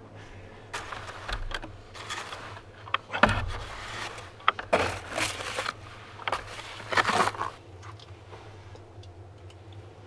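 Stiff-bristled brush sweeping snow off a rooftop solar panel: several separate swishing, scraping strokes that stop about seven seconds in.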